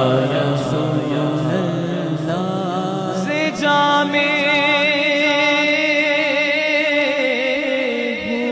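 A man's solo voice singing a Persian naat into a microphone, unaccompanied. About three and a half seconds in he settles into a long held note with a steady wavering vibrato.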